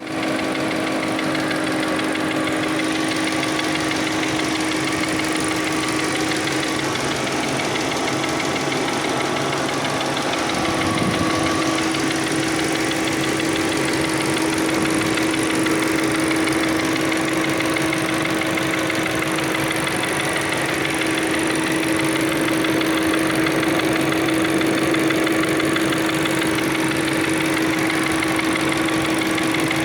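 1.4 TSI turbocharged four-cylinder petrol engine idling steadily with a constant droning tone, the noise being checked as a fault, with a brief low bump about eleven seconds in.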